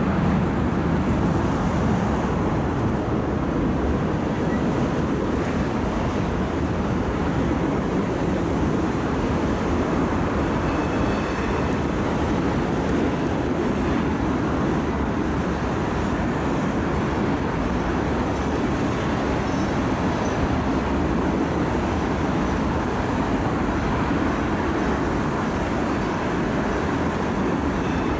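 Loaded coal unit train's hopper cars rolling past, a steady rumble of steel wheels on rail at an even level throughout.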